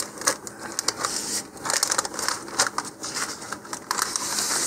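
Clear plastic packaging bag crinkling and rustling as it is opened and handled, with irregular crackles throughout.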